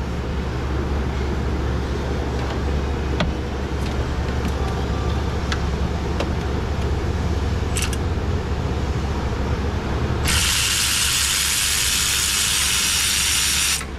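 Handheld cordless power tool running for about three and a half seconds near the end, spinning out a spark plug of a 6.0 L LQ4 V8 through a wobble socket, and cutting off sharply. Before it, a steady low hum with a few light clicks of the socket being worked on.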